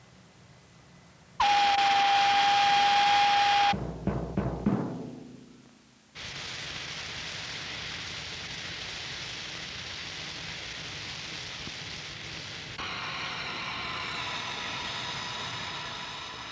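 Cartoon soundtrack effects and music: a loud, steady held high tone for about two seconds, then a few low thumps, then a long even hiss. Near the end the hiss turns into a buzzing sound with several steady pitches.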